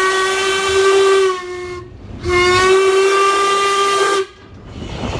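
Steam locomotive's whistle heard from the cab: a long blast that ends about a second and a half in, then after a short break a second blast of about two seconds. Each blast is one steady tone that rises slightly in pitch.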